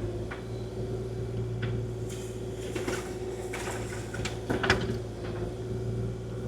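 Kubota KX040-4 mini excavator's diesel engine running at a steady hum, with a few short knocks and clunks from the machine working the ground, the largest cluster a little past the middle.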